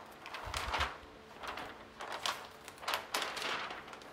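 A plastic burnishing tool rubbed over the backing sheet of a rub-on décor transfer, making a series of irregular scraping swishes, with a low bump about half a second in.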